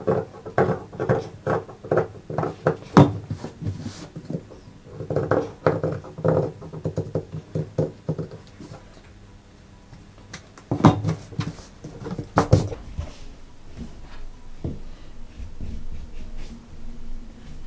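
Fabric scissors snipping through suit cloth to cut out a neckline: runs of crisp snips, a few per second, with a brief pause about halfway and two louder snips a little after it.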